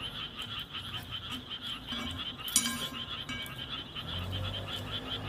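A background chorus of calling animals, pulsing evenly several times a second, with one light click a little past the middle.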